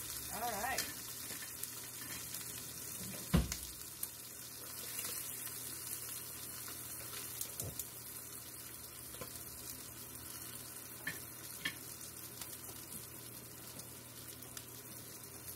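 Black Angus chuck steak sizzling steadily in beef tallow in a frying pan over turned-down heat. A single sharp knock comes about three and a half seconds in, with a few light clicks later.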